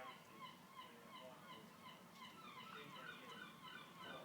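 Near silence, with a premature newborn baby's faint hiccups, two of them about two seconds apart. Under them runs a faint, rapid chirping that repeats several times a second.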